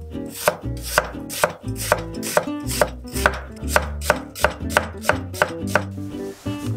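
Chef's knife slicing an onion thinly on an end-grain wooden cutting board: quick, even knocks of the blade on the wood, about four a second, stopping shortly before the end.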